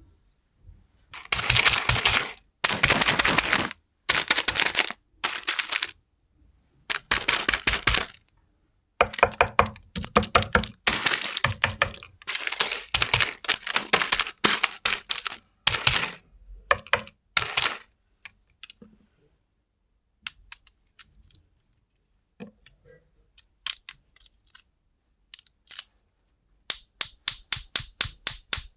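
Crinkling and crackling of plastic candy wrappers being handled, in long dense bursts through the first two-thirds. Then comes a stretch of sparse faint clicks, and near the end a quick run of evenly spaced sharp clicks.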